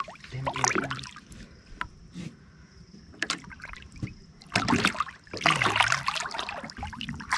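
Water splashing and sloshing in short bursts around a tarpon held by the jaw alongside a small boat, with the longest stretch of splashing in the last few seconds.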